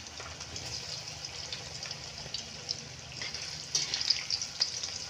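Hot cooking oil sizzling and crackling as cubes of tempe fry in a wok, with a cluster of louder crackles as a spatula stirs them near the end.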